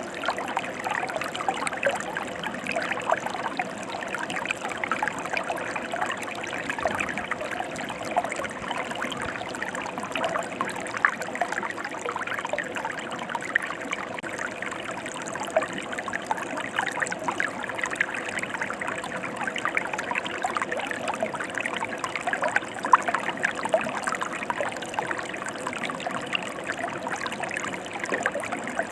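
Mountain river water flowing steadily, an even rush with constant fine splashing.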